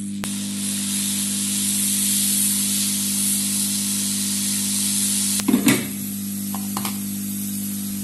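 Hot air rework gun blowing onto a phone circuit board to melt the solder under its metal shield plate: a steady hiss over the station's hum. About five and a half seconds in there is a brief clatter as the plate comes off, and the hiss is weaker after that.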